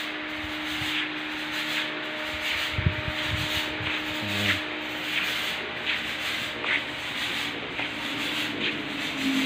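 Hand-held fogging machine running, spraying disinfectant fogging solution as thick fog: a steady hiss with faint ticks about once a second.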